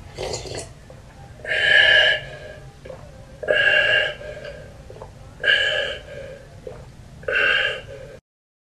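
A boy gulping a drink greedily, letting out four loud open-mouthed gasps about two seconds apart.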